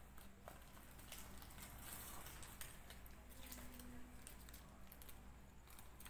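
Faint rustling and crinkling of parchment paper being peeled off a freshly baked loaf, with a few light crackles.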